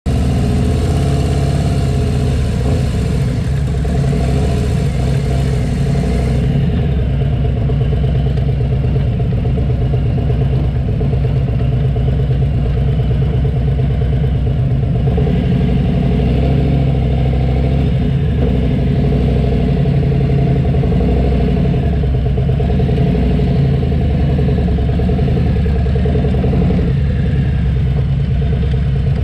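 Motorcycle engine running steadily while riding, with wind and road noise picked up by a camera mounted on the bike. The high hiss drops away about six seconds in.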